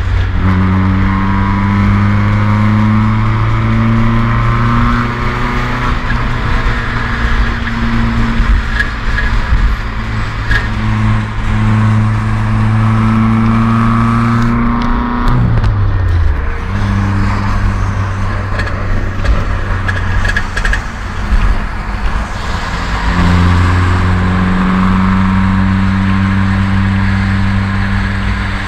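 Toyota AE86 Corolla's drivetrain and engine running with a steady drone, the weird noise the owner traces to the driveshaft. The pitch drops sharply about halfway through and rises again later.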